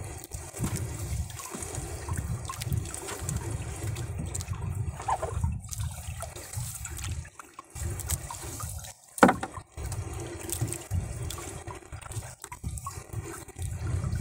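Wet fishing net being hauled by hand over the side of a wooden boat, water running and dripping off the mesh in uneven surges as each length comes in. A single sharp knock about nine seconds in.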